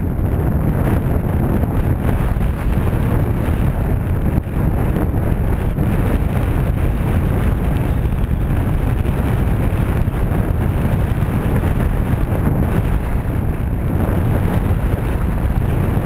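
Steady wind buffeting the microphone on a small open boat at sea: a loud, even low rumble with no distinct events.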